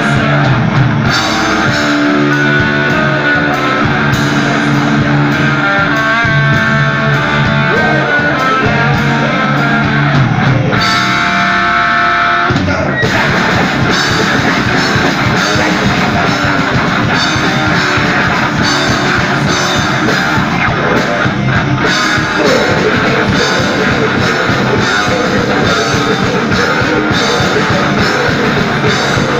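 Live heavy rock band playing: electric guitars with bass and drum kit. Held guitar lines lead for the first dozen seconds, then about thirteen seconds in the full band drives into a denser section with the drums hitting hard and steady.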